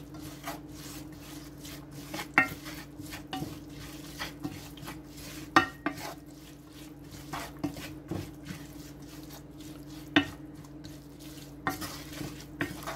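Chopped collard greens being stirred and tossed with celery, onions and seasonings. The utensil gives irregular scrapes and knocks against the cookware, the sharpest about two and a half, five and a half and ten seconds in.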